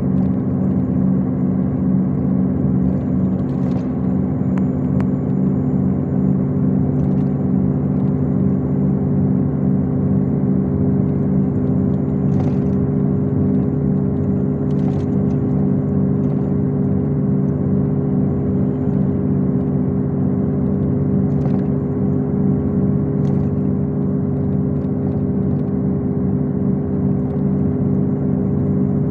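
MAZ-251 coach heard from inside the passenger cabin while cruising at steady speed: its diesel engine gives an even, steady drone over tyre and road noise. A few faint clicks of cabin rattle come through now and then.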